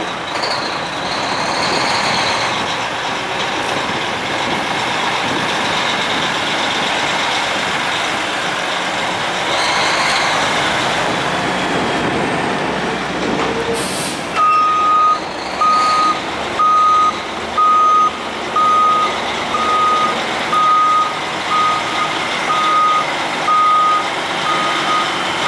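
Mack roll-off truck's diesel engine running as the truck pulls up along the curb, with a short hiss of air partway through. It then backs up with its reversing alarm beeping steadily about once a second.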